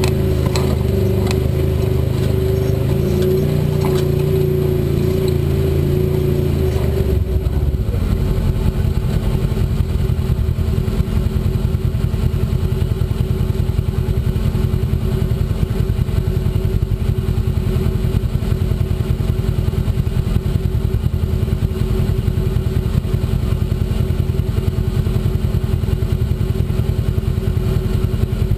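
Side-by-side UTV engine running as the vehicle crawls over a rocky trail. For about the first seven seconds it is a steady drone, then it changes to a rapid, even pulsing.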